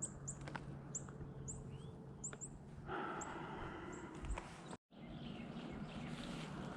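A small bird repeatedly giving short, high, thin chip notes, a few every second, over faint outdoor background noise. The sound drops out abruptly for a moment about five seconds in.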